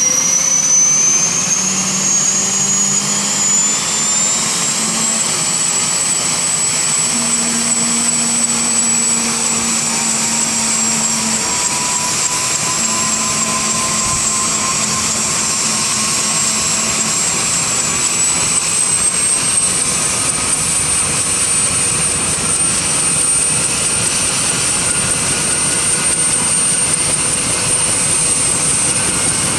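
Loud, steady high-pitched motor whine over a rushing hiss. It rises slowly in pitch in the first few seconds and again about two-thirds of the way in, with a fainter low hum coming and going in the first half.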